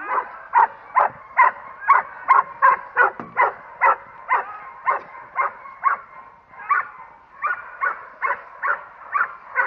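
K9 protection dog barking steadily at the training helper, about two barks a second.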